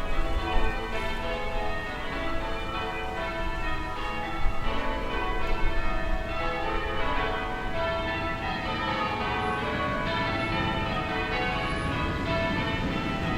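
Distant church bells ringing, many overlapping strikes in quick succession, over a low town rumble.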